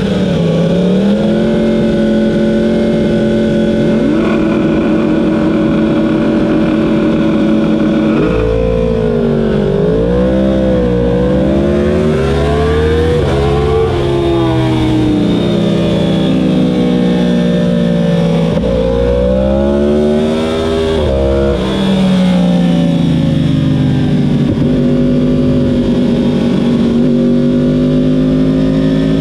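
2015 Yamaha R1's crossplane inline-four engine, heard onboard: held at steady revs while the bike stands still in first gear, then, about eight seconds in, pulling away and accelerating through the gears, its pitch rising and dropping with each shift.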